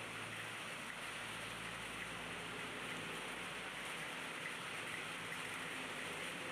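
Steady rain falling on wet pavement, with the low hum of vehicles passing on the road.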